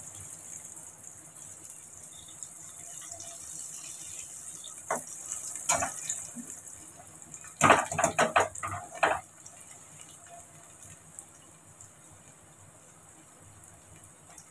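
Taro pieces shallow-frying in hot oil in a steel pan: a steady sizzle. A slotted steel spoon clinks and scrapes against the pan a few times, mostly in a cluster in the middle, as the pieces are turned. After that the sound is quieter.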